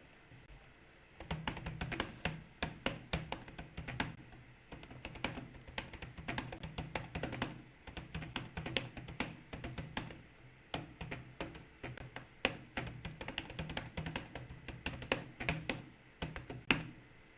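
Computer keyboard being typed on fast: a dense, uneven stream of key clicks, each with a deep thud under it. It starts about a second in and stops just before the end.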